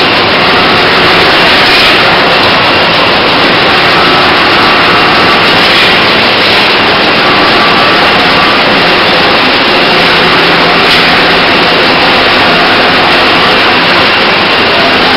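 Tyre recycling production line running: rubber crusher mills and conveyors grinding and carrying crumb rubber, a loud, steady mechanical din.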